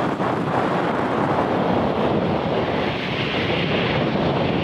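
Embraer 190 jet taxiing, its twin turbofan engines giving a steady rushing roar at low taxi power, with wind on the microphone.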